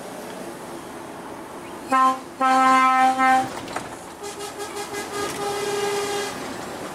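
Truck air horn sounded: a short loud blast about two seconds in, then a longer blast of about a second, over the steady drone of the cab. A fainter, higher-pitched horn follows for about two seconds.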